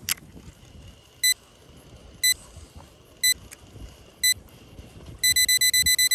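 Electronic alarm beeping: four single high beeps about a second apart, then rapid beeping of the same pitch, about nine a second, starting about a second before the end. A short click at the very start.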